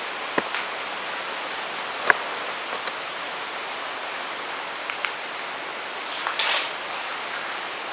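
Steady hiss of wind, broken by a few sharp clicks about half a second, two seconds and five seconds in, and a short louder rustle near the end.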